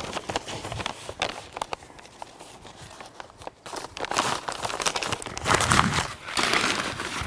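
Brown kraft paper sleeve crinkling and rustling as it is pulled off a potted plant, in short scrunches that come thicker and louder over the last three seconds.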